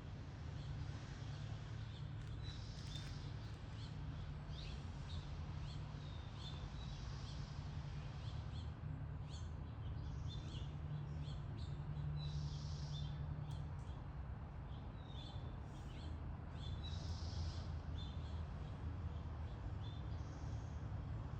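Birds chirping again and again, with short higher-pitched calls every few seconds, over a steady low hum.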